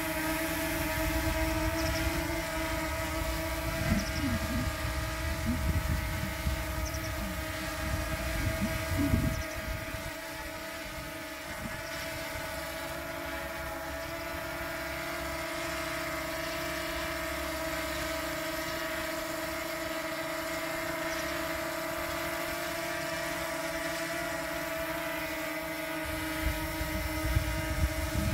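DJI Mini 2 quadcopter hovering and flying low, its four propellers making a steady high-pitched buzzing whine. A gusty low rumble runs under it for the first ten seconds or so and comes back near the end.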